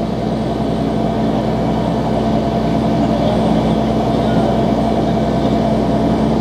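Tow truck's engine running steadily with a constant low hum while its winch cable is hooked to a sunken pickup truck on the boat ramp.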